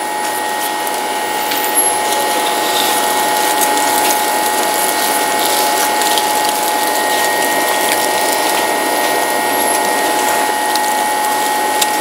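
A machine running steadily, with a constant whine in it, loud and unchanging throughout.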